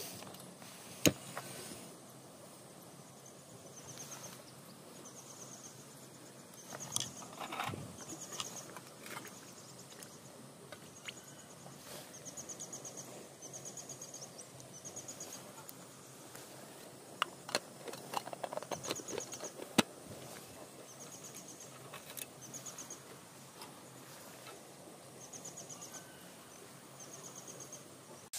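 An insect chirps in short, high, finely pulsed trills about every second and a half. Now and then come a few sharp clicks and knocks as a portable gas stove and a metal pot are handled, the sharpest about a second in and a cluster later on.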